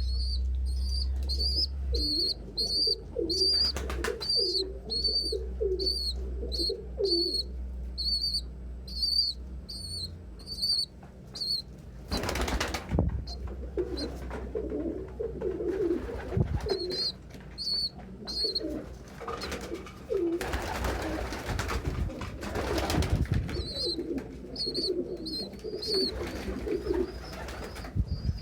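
Domestic pigeons cooing in a loft, with a high peep repeated about twice a second through the first half and again near the end. Wings flap about twelve seconds in and again for a couple of seconds around twenty seconds in.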